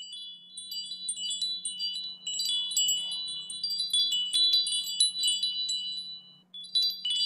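Tinkling chimes: a cascade of many short, high, bell-like tones that pause briefly near the end before one last flurry.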